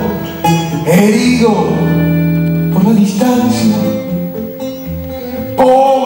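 Instrumental break in an Argentine folk song: guitar playing long held notes, quieter in the second half and swelling again near the end.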